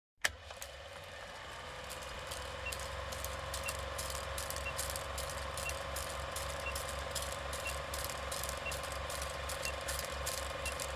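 Film projector running: a steady mechanical whir with fast clicking and a pulsing low rumble, switched on with a click just after the start.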